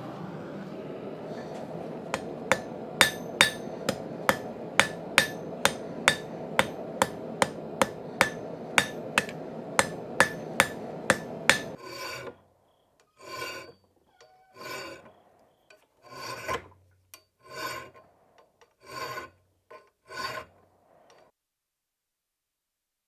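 A forging hammer strikes hot knife steel on an anvil, about two or three blows a second, over a steady rushing noise. Near the middle the rushing and hammering stop, and about six slower scraping strokes follow, roughly one a second, like a file or wire brush worked across the steel.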